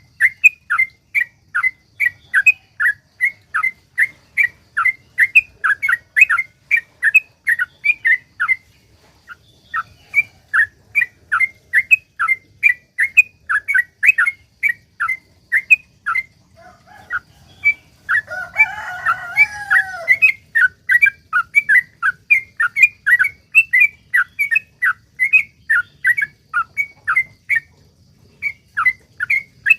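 Yellow-vented bulbul (trucukan) singing a long, rapid run of short bubbling notes, about three a second, with brief pauses. About two-thirds of the way through, a denser, tangled burst of calls comes in with lower notes.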